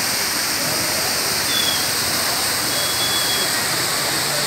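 Waterfall rushing steadily, a constant wash of falling water, with faint voices of people in the background.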